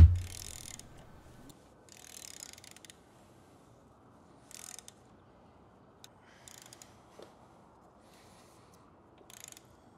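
A thump right at the start, then a hand ratchet clicking in short bursts every couple of seconds as the engine's crankshaft is turned over by hand toward top dead centre.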